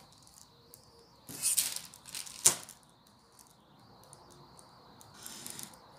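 A marker pen and wooden ruler being worked over a sheet of pattern paper: short scratchy paper rustles about a second in and again near the end, with one sharp click about halfway through.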